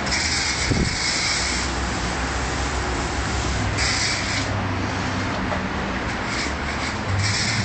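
Self-service car wash pressure wand spraying foam onto a car body: a steady hiss that swells in spells at the start, around four seconds in and near the end, over a low steady hum.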